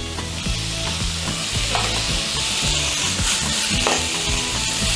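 Chunks of lamb sizzling in hot oil in a frying pan as they brown, turned over with metal tongs that click now and then against the pan.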